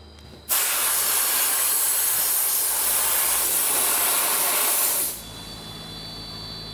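Dry ice blasting gun firing a stream of compressed air and dry ice at a car's undercarriage: a loud, even hiss that starts abruptly about half a second in and cuts off after about four and a half seconds.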